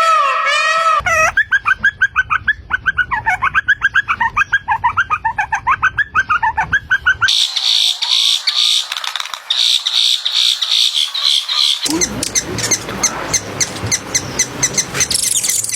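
A string of short animal-call clips, bird-like chirping throughout. First comes a rapid series of chirps, about six a second. A few seconds in, it cuts to higher, thinner chirps, and after that to another chirping call over background noise.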